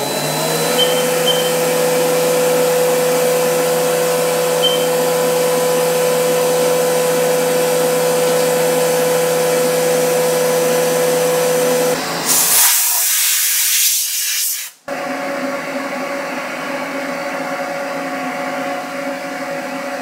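CNC milling machine spindle running with a steady whine, having just come up to speed, as it finishes an aluminium part with a small ball end mill under a mist-coolant spray. A loud hiss comes in about twelve seconds in and cuts off suddenly, followed by a quieter steady machine hum.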